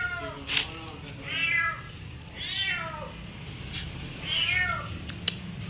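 A domestic cat meowing repeatedly: four drawn-out meows roughly a second apart, each falling in pitch at the end. A few sharp clicks fall between them, one of them loud.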